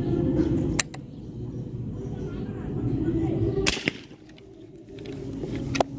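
Three sharp snaps: about a second in, near the middle, and just before the end, over a low background rumble.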